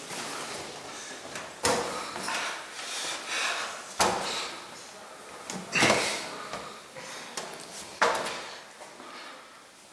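Hand banging against metal locker doors: four sharp bangs, each with a short rattling ring, about two seconds apart.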